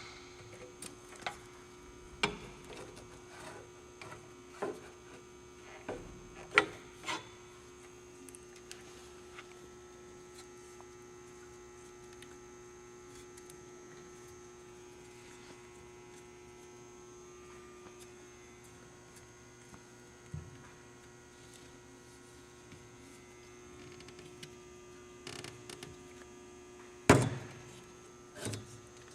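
A steady electrical hum, with a scattered handful of light taps and knocks from a rubber vent weatherstrip being handled and pressed into a metal vent window frame. The loudest knock comes near the end.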